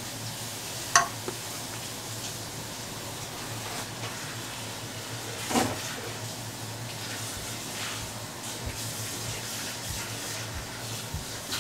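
Quiet kitchen handling sounds: a wooden spoon spreading meat filling on a crêpe, then hands folding the crêpe, over a steady low hum. A sharp clink comes about a second in, and a knock around the middle as the wooden spoon goes into the steel pot.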